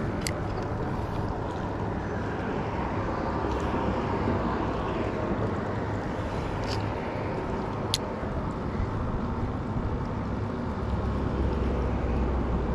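Steady low rumble and hiss of wind and road traffic, with two sharp clicks, one just after the start and one about two-thirds of the way through.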